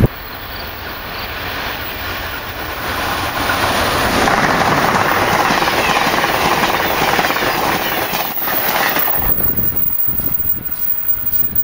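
Amtrak passenger train of Amfleet coaches passing close at speed, its wheels rushing steadily on the rails. The sound builds over the first few seconds, is loudest in the middle, and falls away near the end.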